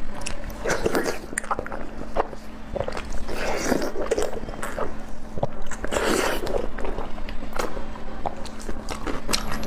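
Close-miked eating sounds from someone biting and chewing a sauce-coated piece of food: many short smacking clicks with a few louder wet, noisy mouthfuls. A faint steady hum lies underneath.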